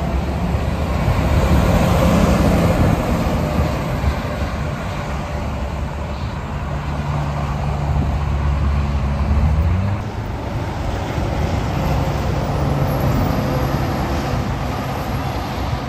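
Heavy semi-trailer trucks passing on a highway: diesel engines running with tyre and road noise, loudest about two seconds in and again about nine seconds in. Just before ten seconds one engine note rises briefly, then the deep engine sound falls away.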